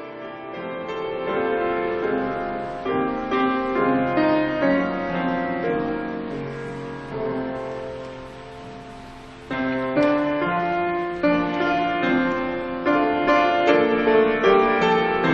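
Piano music, slow chords and melody with notes left ringing. It grows softer through the middle and comes back louder with a new phrase about two-thirds of the way through.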